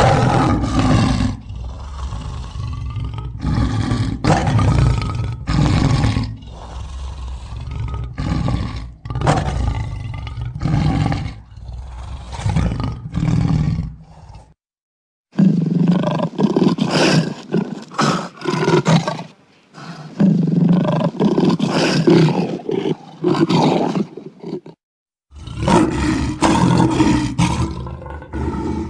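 Lion roaring in a long series of repeated roars, in three takes broken by two short silences about 15 and 25 seconds in.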